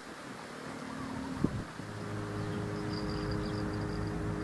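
A brief sharp knock about a second and a half in, then a steady engine hum that slowly grows louder.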